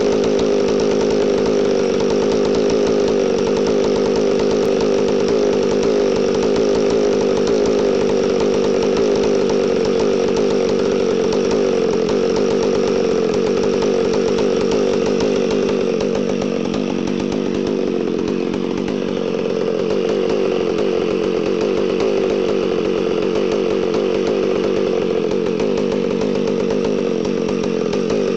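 McCulloch Super Pro 125 vintage two-stroke chainsaw engine running steadily at idle, with no bar or chain fitted, after a full rebuild with a .030" overbore and a freshly cleaned but still gummy SDC-20 carburetor. It sags slightly for a moment past the middle, then picks back up.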